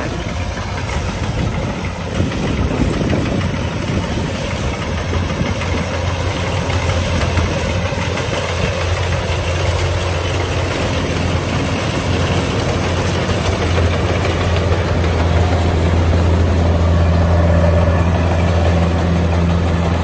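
Kubota DC-105X rice combine harvester running steadily as it cuts rice, its diesel engine hum growing louder as the machine comes close, loudest near the end.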